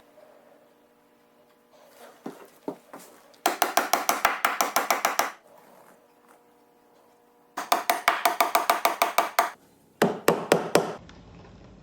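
Rapid mechanical clicking, about ten clicks a second, in three bursts: two of about two seconds and a shorter one near the end.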